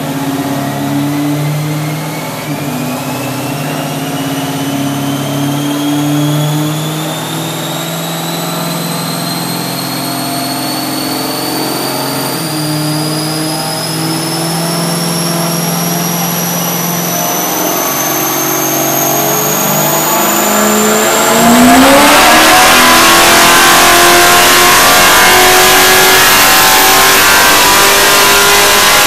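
1972 Chevrolet Nova race car's engine running on a chassis dynamometer: it runs steadily while a high whine climbs slowly in pitch. About three-quarters of the way through it suddenly gets much louder, and the engine's pitch rises steadily as it pulls hard.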